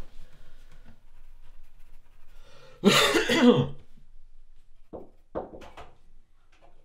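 A man's loud, rough cough about three seconds in, lasting about a second, followed by two short, quieter sounds a couple of seconds later.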